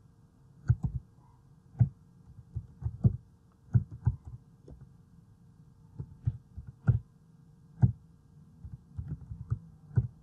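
Computer keyboard being typed on: irregular dull keystrokes in short runs, picked up by the recording microphone, over a faint steady hum.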